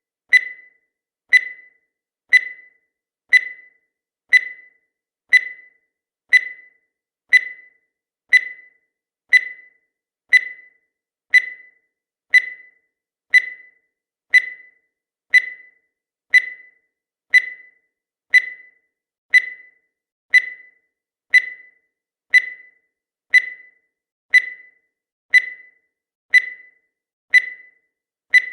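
Countdown timer sound effect: a short, high electronic beep repeating evenly about once a second, each one sharp at the start and fading quickly.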